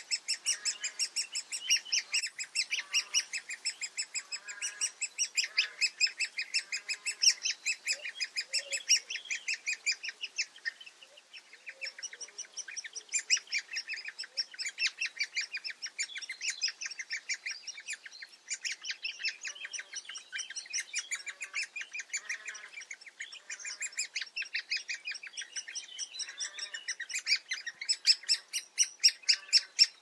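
Great spotted woodpecker nestlings begging from the nest hole: a fast, unbroken chatter of high repeated calls, which weakens for a couple of seconds about ten seconds in and then picks up again.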